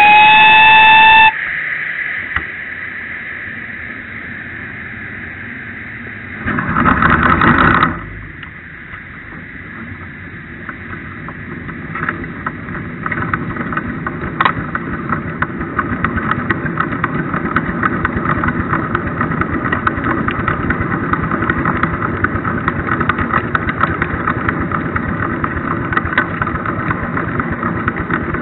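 Live-steam 7¼ inch gauge model of a GWR King class 4-6-0 locomotive. Its steam whistle sounds once for about a second, rising slightly in pitch. A few seconds later there is a loud burst of hiss about a second and a half long. Then the fast, even beat of the locomotive working sets in, growing louder over several seconds before holding steady.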